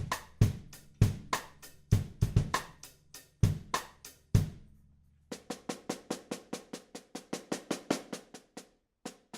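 Drum kit played with a Brady 14 x 6.5 inch Jarrah block snare: a beat of kick drum and sharp snare hits, then after a short pause a fast, even run of strokes on the snare, about eight a second, stopping shortly before one last hit.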